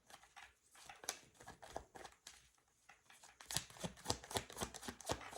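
Tarot cards being handled and drawn: a string of small flicks and taps of cards, sparse at first and then a quick rapid run of them in the second half.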